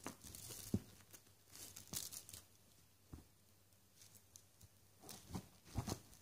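Rustling and scratching on a fleece blanket as a British shorthair cat paws and pounces at a feather wand toy. The sound comes in short irregular bursts: a flurry at the start, another about two seconds in, and a cluster near the end.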